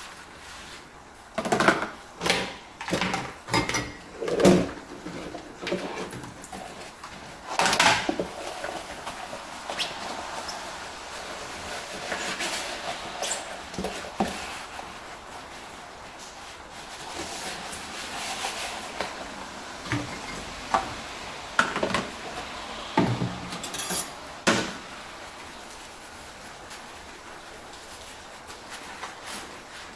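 Dishes being washed by hand, clinking and clattering against one another. The knocks come in busy clusters, the densest in the first several seconds and again past the middle, with quieter stretches between.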